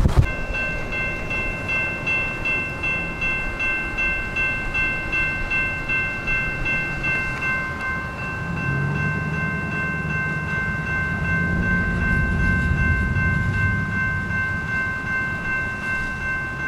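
Train horn blowing one long steady chord of several notes, with a low rumble that swells in the second half as the train draws near.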